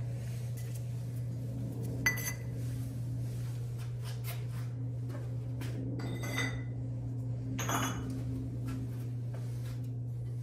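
Ceramic kiln posts clinking as they are lifted out of an electric kiln and knocked against each other or the kiln: three short ringing clinks, the sharpest about two seconds in, the others past the middle. A steady low hum runs beneath them.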